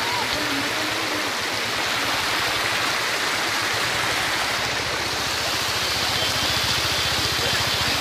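Waterfall and mountain stream rushing over rocks: a steady, loud hiss of water.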